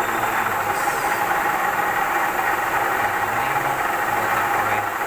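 Kiheung KMU-1.5 S milling machine running steadily with its cutter facing an aluminium workpiece: an even, continuous machining noise.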